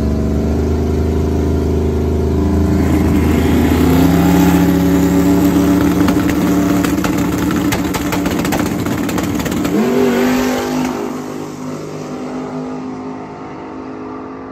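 Turbocharged LS-based V8 in a Chevy Colorado drag truck running loud on the starting line. It revs up about 3 seconds in and is held high, with a rapid crackle of pops. About 10 seconds in the engine note sweeps up as the truck launches, then fades as it runs away down the strip.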